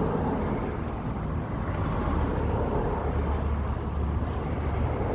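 Street traffic going by, a vehicle's low rumble swelling in the middle.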